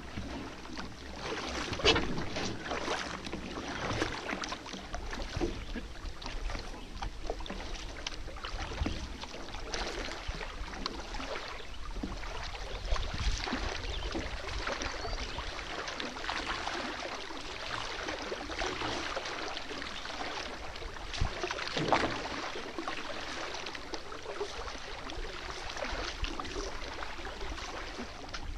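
Tandem canoe being paddled: paddles repeatedly dipping and pulling through the water with splashes, and water swishing along the hull as the boat glides.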